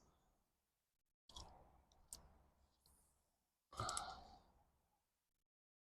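Near silence broken by a few short noises: one about a second in, a sharp click around two seconds, and another near four seconds, each dying away quickly.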